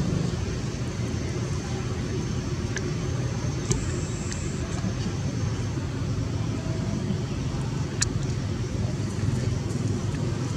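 Steady low rumble of motor traffic, with two brief sharp clicks, one about four seconds in and one about eight seconds in.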